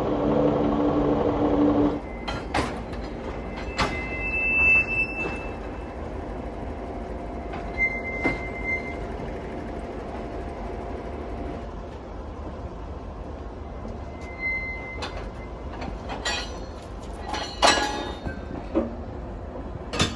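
Railway sleeper carriage moving slowly with short, high wheel squeals and scattered metallic clanks and knocks over a low rumble. A loud steady hum stops suddenly about two seconds in, and the knocks bunch together near the end.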